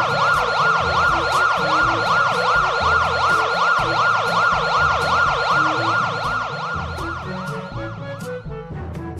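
Ambulance siren sound effect, a fast wail whose pitch sweeps up and down about three times a second, over a background music bass line; the siren fades over the last few seconds.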